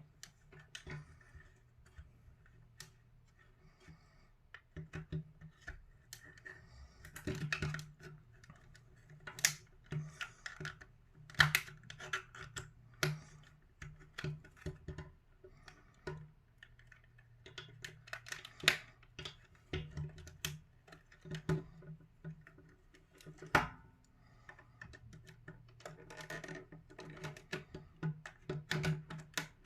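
Irregular plastic clicks, snaps and light scraping as the shell halves of a PS5 DualSense controller are pried apart with a thin flat tool, over a faint steady low hum.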